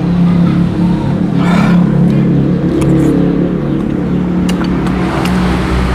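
A motor vehicle engine running steadily with a low hum, louder than the talk around it. A few light clinks of a spoon and fork against a soup bowl come in the second half.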